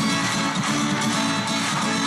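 Music with guitar, playing steadily.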